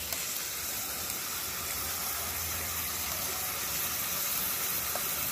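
Pork cecina frying in oil in a metal pan, giving a steady sizzling hiss.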